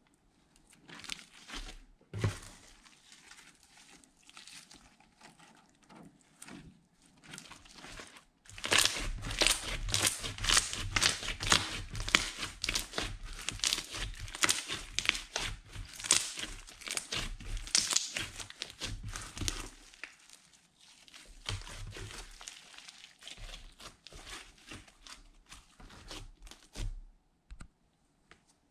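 Hands squishing and kneading glitter-filled slime: sticky clicks and crackles, sparse at first, dense and fast through the middle, then thinning out near the end.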